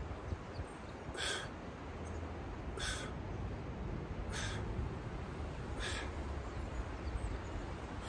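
Short, forceful exhalations, one about every one and a half seconds, in time with repeated swings of a heavy wooden stick used as a clubbell.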